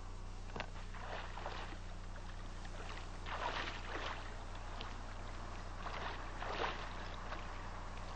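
Water splashing and sloshing in a few soft surges, over a steady low hum.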